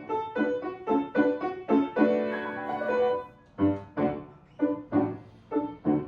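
Solo piano playing an interlude between sung verses of an operetta aria: a run of struck notes and chords, then after a brief pause about three seconds in, short detached chords.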